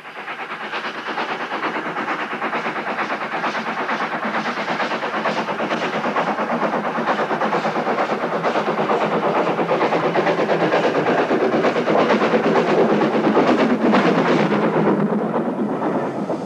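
Hunslet saddle-tank steam locomotive working uphill with a train of wagons, its exhaust beats and rumble growing steadily louder as it approaches. The sound peaks as it passes, then drops away as the wagons roll by.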